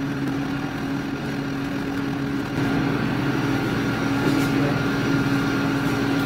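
Steady mechanical hum with a constant drone, stepping up a little in level about two and a half seconds in.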